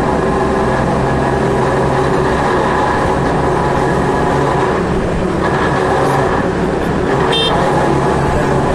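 Riding noise of a scooter in road traffic: a loud, steady rush and hum of engine, wind and passing vehicles, with a brief high beep about seven seconds in.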